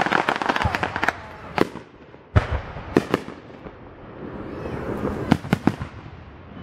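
Aerial fireworks shells bursting: a rapid run of small crackling pops at the start, then a string of sharp booms, the deepest and loudest about two and a half seconds in, and another quick cluster of bangs near the end.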